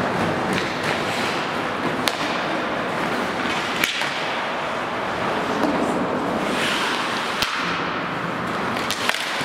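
Ice hockey skates scraping and carving on rink ice in a steady hiss, with several sharp clacks of sticks striking the puck scattered through it.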